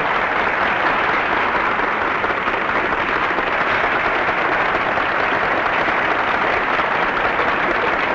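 A crowd applauding steadily, heard on an early sound-film recording.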